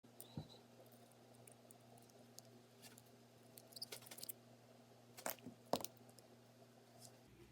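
Faint, scattered clicks and taps of small metal lock parts being handled and prodded with tools while working the core out of a milled-open Assa interchangeable-core cylinder, with a faint low hum throughout. There is a brief cluster of clicks about halfway through, and the sharpest tap comes near the three-quarter mark.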